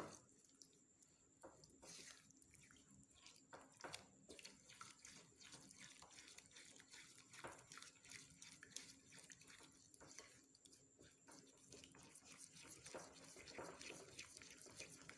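Faint wet mixing: a silicone spatula stirring and scraping a runny batter of egg, melted butter and sugar around a ceramic bowl, with irregular soft clicks and scrapes.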